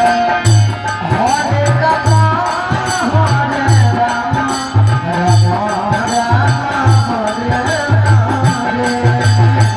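Devotional kirtan music: a wavering sung or played melody over a steady, repeating drum beat, with jingling hand percussion keeping the rhythm.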